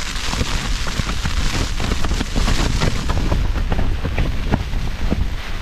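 Rain pelting and strong wind buffeting the thin nylon of a bothy bag, heard from inside: a dense patter of drops and fabric flapping over a heavy wind rumble on the microphone.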